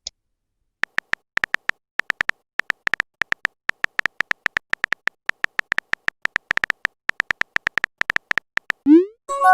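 Irregular run of quick, identical clicks, a phone keyboard typing sound effect, each tick at the same bright pitch. Near the end a short rising swoop and a pitched chime follow, a message-sent notification sound.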